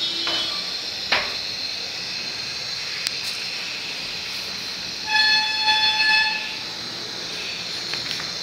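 Biogas stove burner hissing steadily with its flame lit. About five seconds in, a horn sounds once for about a second, a single steady note louder than the hiss.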